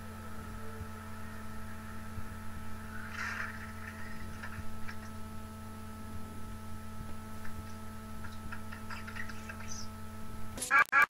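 A steady electrical hum with a few faint ticks and a brief soft rustle about three seconds in. Near the end it cuts off and louder music begins.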